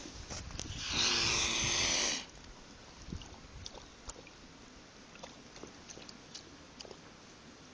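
Mute swan hissing: one breathy hiss lasting over a second, starting about a second in. Faint small clicks and rustles follow.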